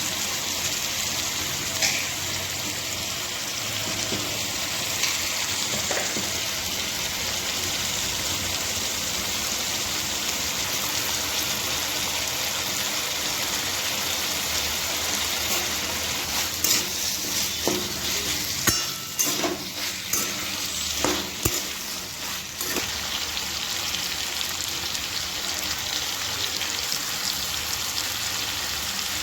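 Food frying in hot oil in a pan, a steady sizzle. Between about 16 and 23 seconds in, a run of sharp clicks and knocks comes from a spoon stirring against the pan.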